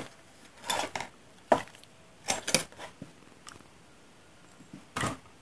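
Handling noises of a plastic figurine on a hard black plastic base and its wrapping: a string of short rustles and clicks, with one sharp click about a second and a half in and a longer rustle near the end.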